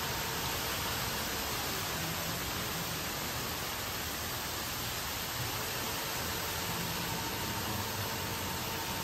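Heavy hailstorm downpour, rain and hail pelting a concrete porch and walkway, making a dense, steady hiss in which no single impact stands out.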